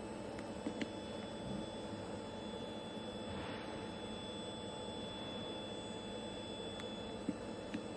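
Steady electrical hum from a powered-up FANUC arc welding robot, with a thin high-pitched whine and a few light clicks near the start and the end.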